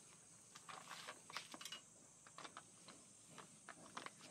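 Faint, scattered clicks and rustles of plastic meal packaging being handled and lifted out of its bag.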